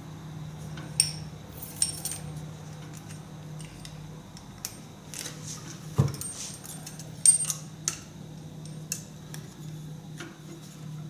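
Hand tools and small steel parts clinking and clattering in a series of sharp, irregular metallic clicks over a steady low hum.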